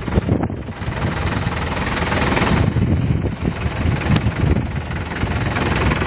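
Blizzard wind buffeting the microphone in uneven gusts over the engines of cars crawling along a snowbound highway, with one sharp click about four seconds in.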